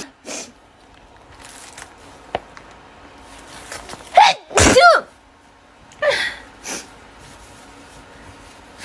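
A woman sneezes loudly about four seconds in, in two quick bursts, the second one louder. Shorter breathy nasal bursts follow about a second later, with a brief one near the start.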